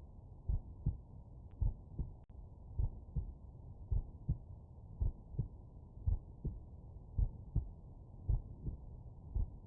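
Human heart sounds heard through a stethoscope at the mitral valve area: a steady rhythm of paired lub-dub beats, about one a second, over a low steady rumble.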